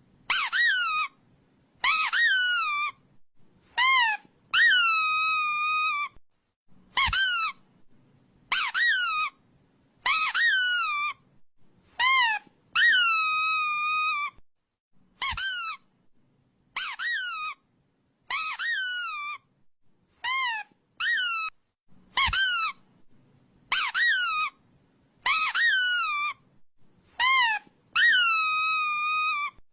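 A series of high-pitched squeaks, roughly one every second or two, each sliding down in pitch; some are short chirps, others are drawn out for over a second.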